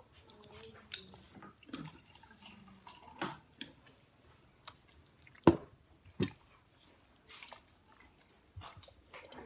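A toddler eating: scattered soft chewing, lip-smacking and mouth clicks, with two sharp clicks a little past the middle.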